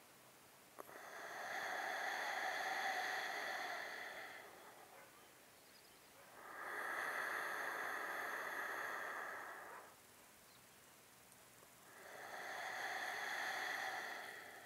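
A woman breathing deeply and slowly, as in paced yogic breathing: three long breaths of about three seconds each, a couple of seconds apart.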